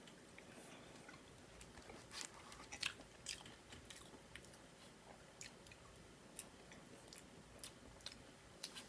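Faint chewing and mouth sounds of someone eating a soft, fluffy slice of cake, with scattered small clicks, the loudest cluster a little over two seconds in.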